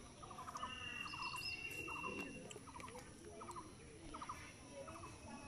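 Faint chorus of small animals calling: short pulsed chirps repeating about twice a second, with one long high steady note about a second in.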